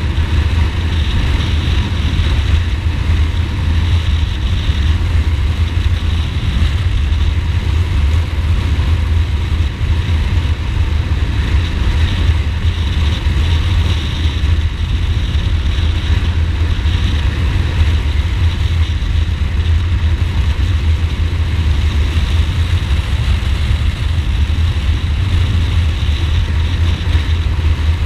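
Ducati Multistrada motorcycle being ridden at a steady pace, heard from on the bike: a constant, loud low rumble of engine and rushing air, with no clear revving.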